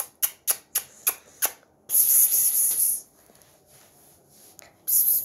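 A person calling a cat with quick "psst, psst" sounds, about seven short hissing clicks in a row, then a longer drawn-out hiss, and another burst of hissing near the end.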